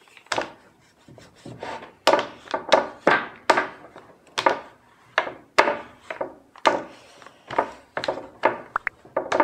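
Rolling pin pushed back and forth over dough on a floured wooden cutting board: a run of short rubbing, knocking strokes, about two a second, coming thick and regular from about two seconds in.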